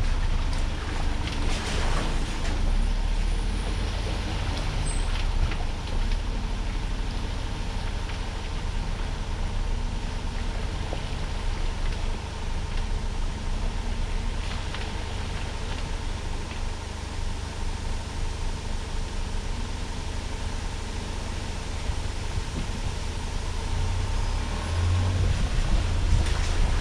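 4x4 vehicle driving slowly off-road: a steady, low engine and drivetrain rumble with a few scattered knocks.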